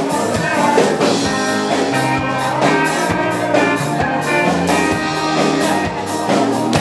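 Live rock band playing an instrumental passage between sung lines: electric guitar over a steady drum beat.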